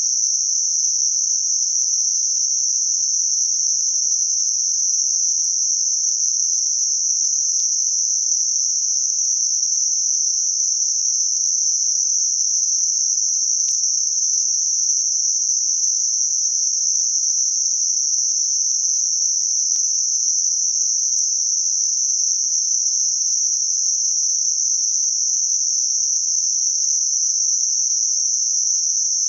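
Computer-generated Gaussian narrow-band noise centred around 6 kHz, a high steady hiss whose bell-shaped band rolls off between about 4 and 8 kHz. It is a sound-therapy masker for high-pitched tinnitus.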